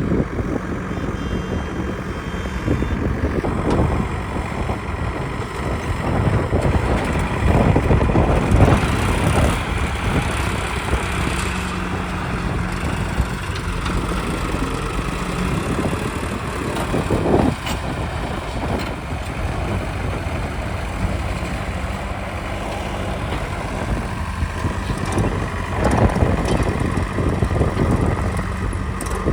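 Heavy diesel engine running steadily with a low drone, swelling louder a few times, about a third of the way in and again near the end.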